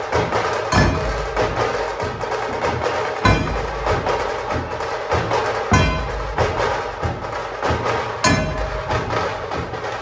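Dhol-tasha ensemble drumming: tasha drums play dense, fast strokes while the dhols land heavy beats about every two and a half seconds.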